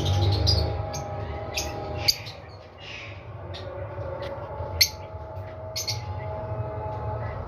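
Violet-mutation Fischer's lovebird giving short, sharp chirps and squawks, about half a dozen scattered through, over a steady low hum.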